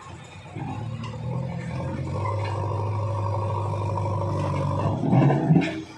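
JCB 3DX backhoe loader's diesel engine working under load as its front bucket pushes a large boulder. The engine note builds about half a second in, holds steady, then turns louder and harsher near the end.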